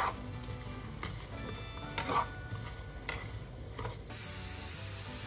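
Tofu and carrots sizzling in a frying pan as they are stirred, with the utensil clicking against the pan about once a second. The sizzle grows louder about four seconds in.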